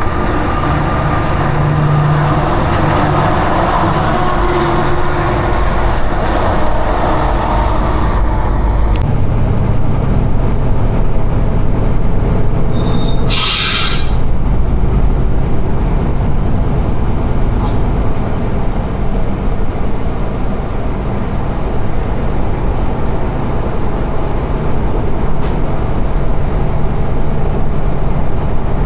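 Loud steady rumble of heavy rolling vehicles, with a brief high squeal about halfway through.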